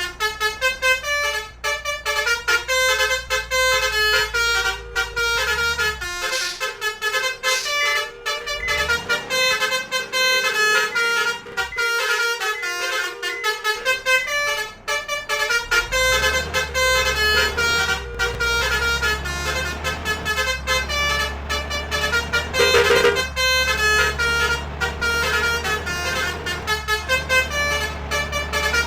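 Basuri 'telolet' musical horn playing fast runs of short melodic notes over and over throughout. Underneath, a vehicle engine's low hum runs for much of the time, dropping out briefly twice.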